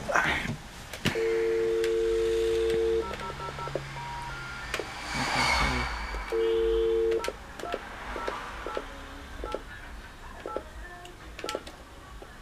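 Desk telephone being dialled: a steady two-note dial tone for about two seconds, a few keypad beeps, a brief rustle, the dial tone again for a moment, then a string of short keypad (DTMF) beeps, about two a second, as a number is entered.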